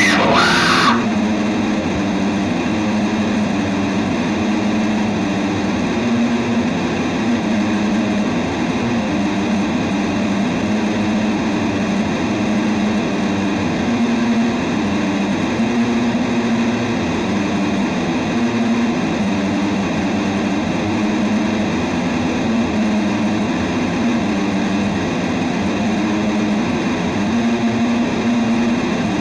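Dense, unbroken noise: a low droning hum that wavers around one pitch under a thick wash of hiss, typical of experimental noise or drone music. A brighter, squealing sliding layer cuts off about a second in.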